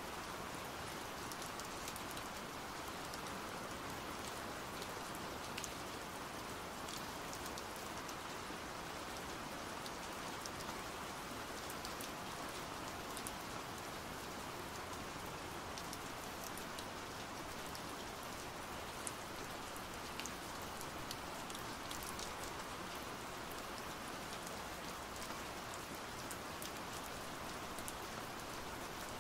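Steady pouring rain, with sharp individual drop hits scattered through it.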